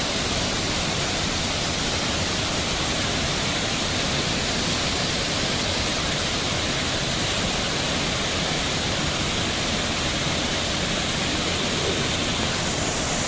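Water rushing down a waterfall and along its rocky stream: a steady, unbroken rush of falling water.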